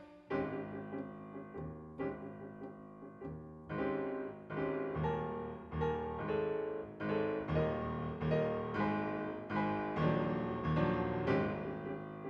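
Break music: a piano piece, notes struck one after another and left to ring away, starting just after a brief pause.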